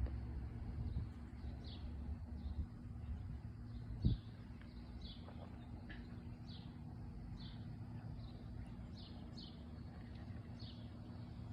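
A bird chirping over and over, short high calls about once a second, over a low steady hum of outdoor background noise. A single thump about four seconds in.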